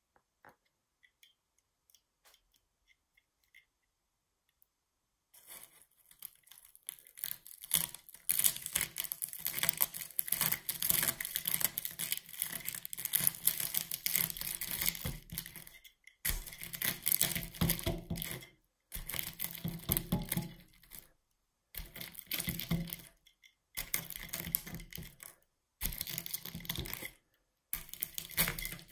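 Popped popcorn crunching and crackling as it is crushed: a long continuous stretch of crackle starting about five seconds in, then five or six shorter bursts with brief pauses between them.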